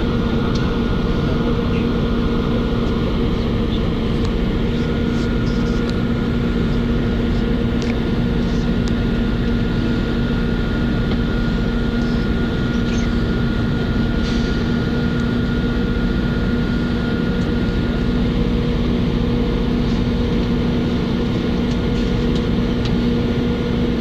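Steady running drone of a vehicle in motion, heard from inside, with a constant low hum. A faint high whine above it fades out about three quarters of the way through.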